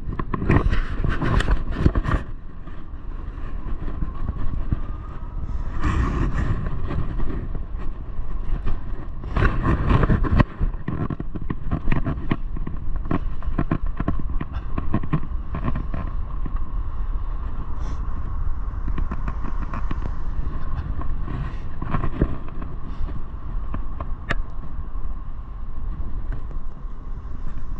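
Riding a Rad Power RadMini e-bike over city pavement: steady tyre and wind rumble with frequent knocks and rattles over bumps and cracks. A steady whine from the rear hub motor rises a little in pitch a few seconds in and then holds.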